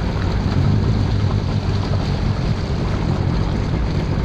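Jet ski's 4.8-litre LR4 LS V8 engine running steadily on the water, a low rumble with wind noise on the microphone.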